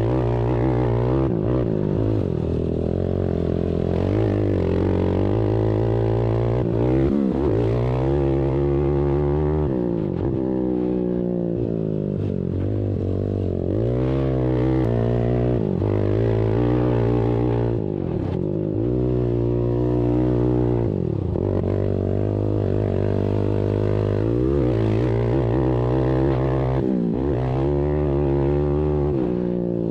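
Several ATV engines racing, each repeatedly revving up and dropping back as the machines accelerate and slow around a short dirt track, over a steady low hum.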